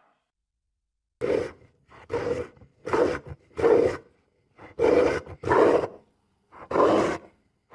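A farm animal giving a quick series of short, harsh calls: about nine in six seconds, starting after a second of silence.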